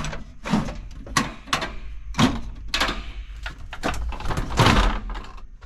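Hardware and storage bins being handled on van shelving: a busy series of knocks, rattles and sliding scrapes.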